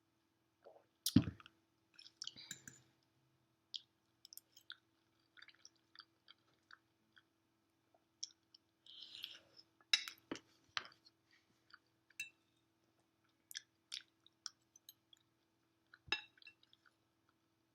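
A person chewing a mouthful of creamy mac and cheese, with soft wet mouth sounds and scattered sharp clicks. The loudest click comes about a second in.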